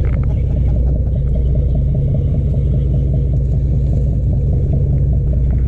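A fishing boat's engines running steadily under way: a loud, even, low rumble.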